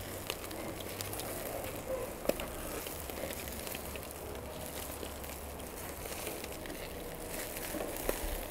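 Crackling fire: scattered sharp pops and clicks over a steady hiss.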